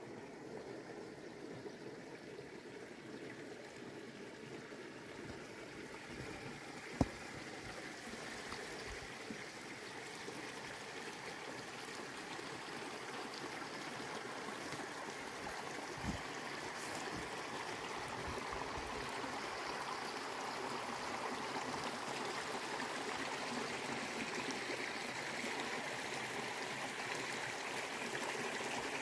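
Small mountain stream running, a steady rush of water that grows gradually louder. A single sharp click about seven seconds in and a fainter one about halfway through.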